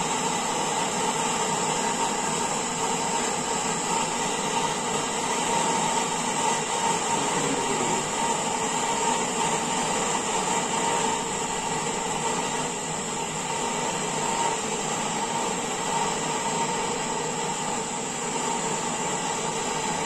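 Handheld canister gas torch burning with a steady hiss as its flame heats a copper pipe joint for brazing.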